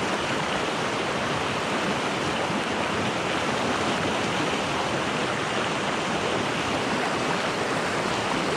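Fast river rapids rushing over rocks, a steady loud roar of white water close by.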